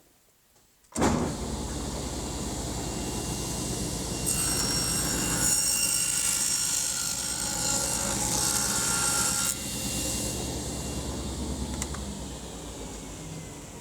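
A workshop power tool's electric motor switches on about a second in and runs steadily. A higher whine joins it for about five seconds and cuts off suddenly, and the motor then spins down near the end.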